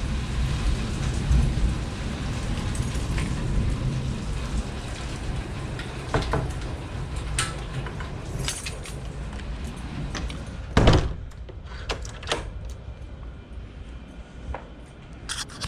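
Steady rumble and hiss of wind and rain, then a door shutting with a thud about eleven seconds in, followed by a few light clicks and knocks.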